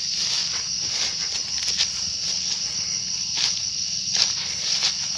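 Steady high-pitched chorus of insects, with occasional soft footsteps through grass.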